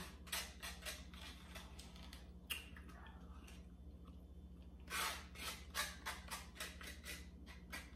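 Close-up eating sounds: chewing and mouth clicks, with a plastic fork clicking and scraping in a small takeout side cup of string beans. They come in two clusters, briefly at the start and again from about five seconds in, over a faint steady low hum.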